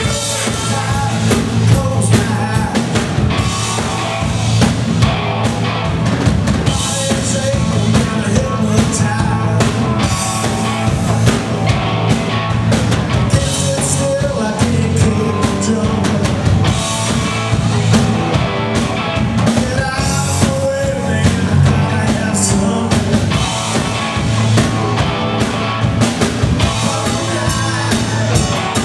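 Live rock band playing: electric guitars, bass guitar and a drum kit keeping a steady beat.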